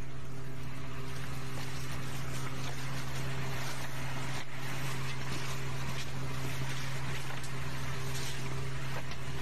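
An engine running steadily: a constant low hum with overtones under an even rushing noise.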